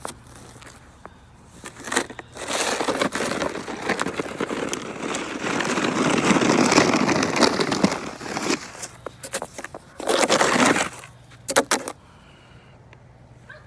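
Snow being scraped and pushed along the ground with a wooden tool, crunching, in one long stretch and then a shorter one, with a few sharp knocks near the end.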